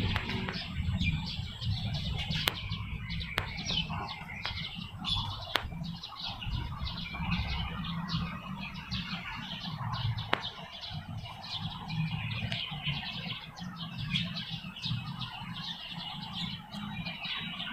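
Many small birds chirping in quick short calls, over a low steady rumble, with a few sharp clicks.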